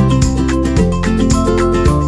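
Upbeat background music: plucked guitar-like melody over a steady beat.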